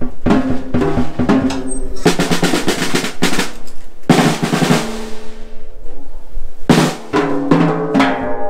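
Pearl Roadshow acoustic drum kit being played with sticks: quick runs of hits on the drums, a fast roll about two to three seconds in, and two strikes that ring on in a long high wash, about four and seven seconds in.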